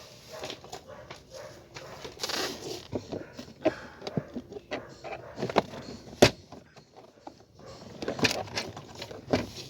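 Scattered clicks, knocks and scraping of a tight plastic steering-column trim cover being worked and pried loose by hand around the ignition key cylinder, with one sharper knock about six seconds in.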